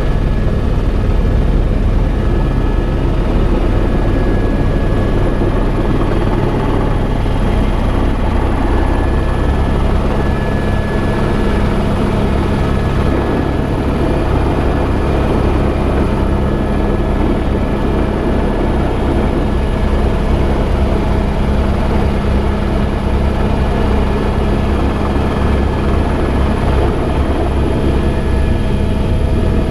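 Helicopter in flight: steady, loud rotor and engine noise with a fast low pulsing and a thin high-pitched whine held throughout.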